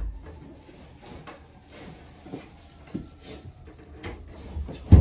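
Footsteps coming down stairs: a run of irregular thumps and knocks, with the heaviest thud near the end.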